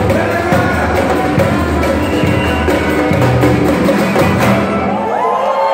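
Live samba band playing with a steady percussion beat: cavaquinho, pandeiros and drums. About five seconds in the drums stop and crowd cheering and shouting begins.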